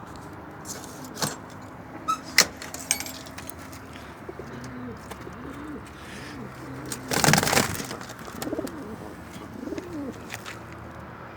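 Domestic pigeons cooing, a run of low, rising-and-falling coos repeated through the second half. A few sharp clicks come in the first seconds, and a loud rustling burst lasting under a second comes about seven seconds in.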